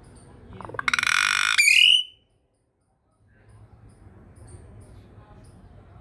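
Common hill myna giving one loud, harsh call about a second long, ending in a short rising whistle.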